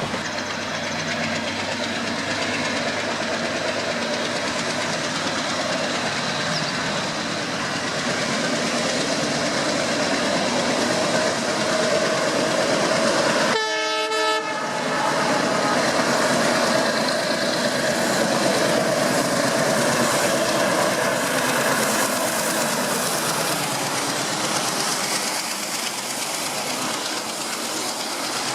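Train running along the track: a steady rushing din of wheels on rails, with a brief pitched tone, horn-like, about halfway through.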